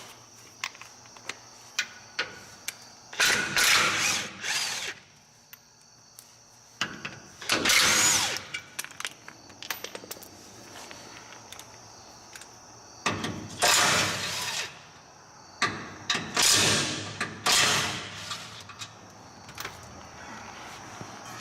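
Cordless impact wrench running bolts in, in about half a dozen short bursts of a second or so each. Sharp metal clicks from sockets and bolts being handled fall between the bursts.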